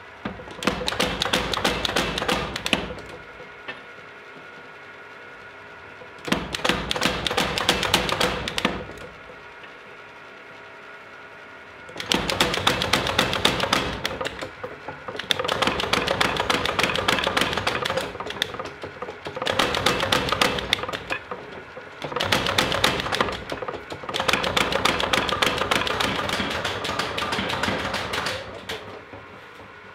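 Power hammer forging a red-hot steel hoe blade in runs of rapid blows, each run lasting a few seconds. Between the runs the machine keeps up a steady hum.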